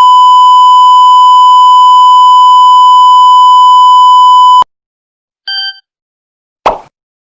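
A loud, steady electronic beep tone held for nearly five seconds and cut off abruptly, in the manner of a censor bleep sound effect. A brief, lower beep follows, then a single sharp knock near the end.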